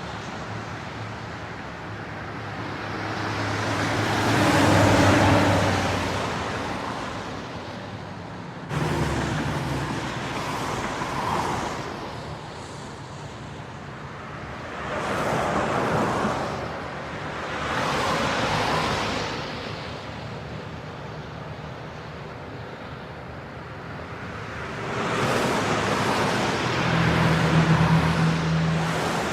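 Heavy traffic on a wet highway at 40–50 mph: vehicles pass one after another, each a swell of tyre spray on wet pavement that rises and fades, about five passes in all. Under some passes there is the low drone of a heavy vehicle's engine, plainest near the end.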